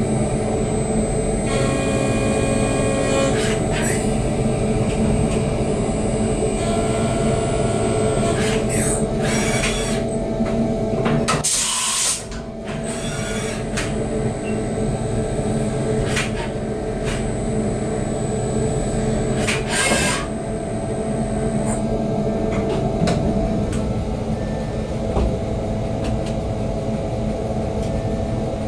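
Dure Vertical 5060 CNC vertical milling machine running while machining a casting: a steady machine hum with held tones, broken several times by short hissing bursts.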